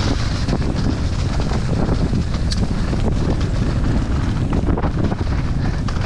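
Wind buffeting the microphone over the continuous rattle and knocking of a mountain bike ridden fast down a rough dirt trail, with a sharp tick about two and a half seconds in.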